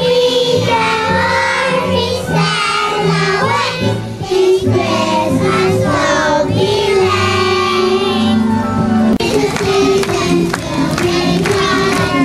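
A group of young children singing together in unison, one into a handheld microphone, over a backing music track. About nine seconds in, a beat of sharp strokes joins the song.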